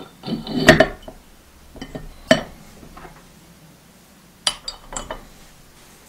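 Porcelain upper pot of a Letizia Espresso moka pot being handled and set onto its aluminium base, clinking and knocking against the metal in three short bursts, some with a brief ring.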